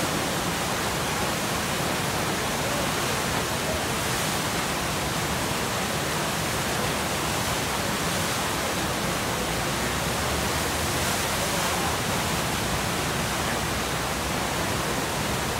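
Steady rushing of whitewater at the Eisbach's standing river wave, the fast current pouring over the step and breaking into a continuous churn.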